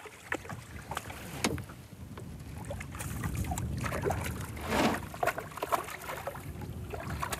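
A hooked smallmouth bass thrashing and splashing at the water's surface beside a small boat during the fight, with scattered sharp clicks and knocks and one louder splash about five seconds in, over a low rumble.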